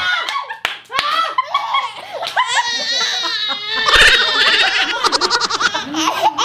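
Two women laughing hard, in bursts of rapid ha-ha pulses from about four seconds in, while an infant cries.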